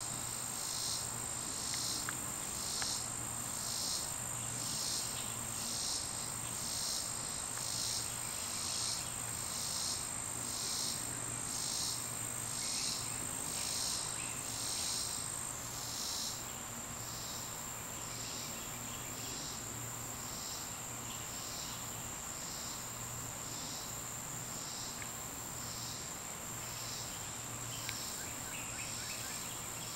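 Insects chirping outdoors: a regular chirp about twice a second over a steady high whine, the chirps growing fainter after about 16 seconds.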